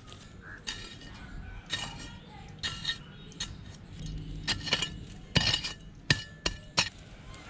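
Metal hand trowel stabbing into dry, gritty garden soil to dig a small hole. It gives about a dozen irregular, short metallic clinks as the blade strikes the ground.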